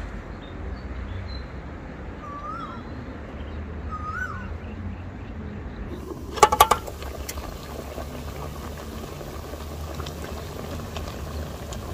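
A metal pot lid clanks several times in quick rapid succession about halfway through as it is lifted off the pot, ringing briefly. After that comes a steady hiss of the pot of vegetable broth simmering over the wood fire. Before it, two short animal calls sound over outdoor rumble.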